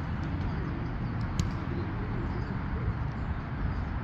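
A single sharp smack of a volleyball being struck about a second and a half in, over a steady low outdoor rumble.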